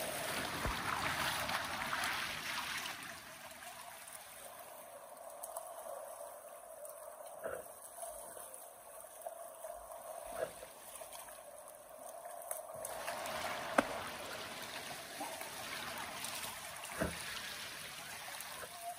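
River water flowing and trickling steadily, with a few sharp faint clicks scattered through it.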